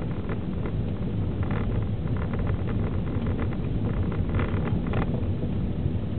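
In-cabin engine and tyre noise of a 2009 Vauxhall Astra 1.8 petrol automatic driving on a rough single-track lane: a steady low rumble with frequent small clicks and rattles over it.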